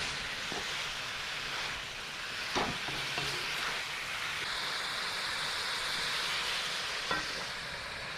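Food sizzling in hot oil in a pan while it is stirred, a steady frying hiss with a few sharp clicks of the spatula against the pan.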